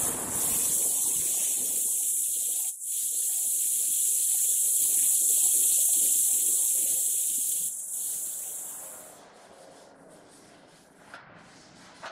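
Large metal lathe turning a big steel cylinder, heard as a loud, steady high-pitched hiss that breaks off once briefly and dies away about nine seconds in.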